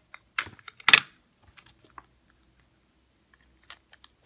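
Sticky tape being torn and pressed onto a paper tube: two short tearing noises in the first second, the second louder, then small crinkles and taps of tape and paper being handled.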